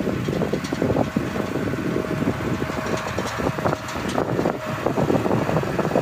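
Tractor engine working under load, pulling a large multi-furrow reversible plough through stubble: an uneven rumble with irregular knocks and rattles, heard from a vehicle driving alongside.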